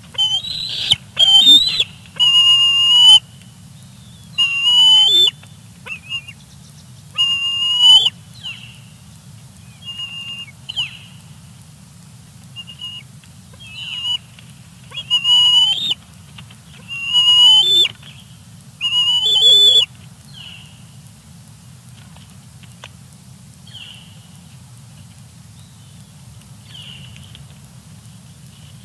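Juvenile bald eagle giving food-begging calls: a series of loud, high whistled squeals with bending pitch, about one every two seconds. After about twenty seconds only fainter, shorter calls remain.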